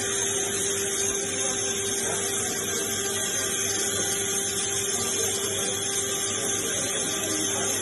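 Steady electric machine hum with a constant hiss, unchanging throughout.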